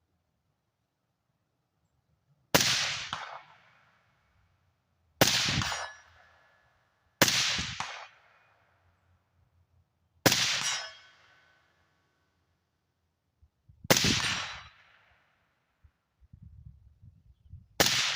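Six suppressed rifle shots fired one at a time, two to four seconds apart, each a sharp report followed by a tail that dies away over about a second.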